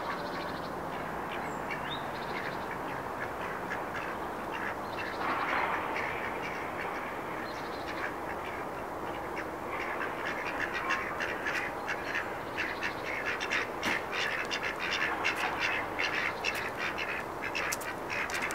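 Domestic drakes quacking in short, repeated calls that come more and more often in the second half.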